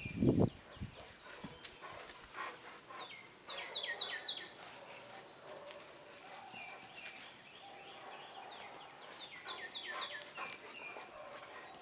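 Rottweilers moving about on the ground hunting for treats, making scattered soft clicks and rustles, with a short low muffled thump at the very start. A bird sings in the background: groups of three or four quick falling whistles, about four seconds in and again near ten seconds.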